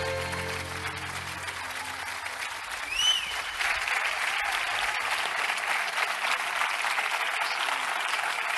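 A string orchestra's final held chord dies away in the first second and a half, and the audience breaks into applause that builds and carries on. About three seconds in, a short high whistle rises and falls over the start of the clapping.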